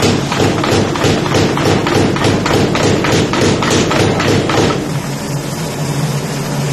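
Power hammer pounding a red-hot damascus sword bar in fast, even blows, about four or five a second, drawing out the blade's taper. The hammering stops a little before the end, leaving a steady low drone.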